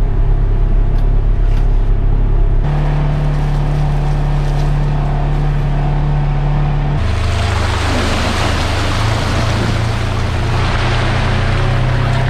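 Polaris Ranger XP 1000 side-by-side's twin-cylinder engine running steadily as the vehicle drives along a dirt trail. The engine note changes abruptly about two and a half and seven seconds in, and from the second change a hiss of tyres and wind rises over it.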